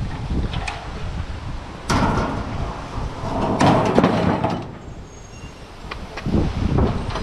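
Satellite dish and its metal mount being loaded into a steel mesh utility trailer: metal clattering and scraping against metal, starting about two seconds in and loudest around the fourth second. Wind rumbles on the microphone throughout.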